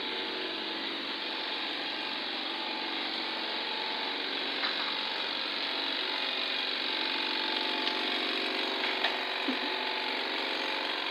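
Air compressor running steadily for a paint spray gun, with a few small clicks partway through.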